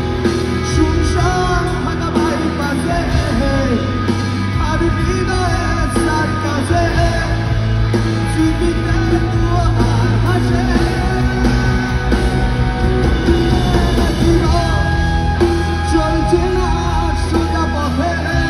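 Live rock band playing an unplugged set: a steady, loud passage of instruments with a voice singing over it.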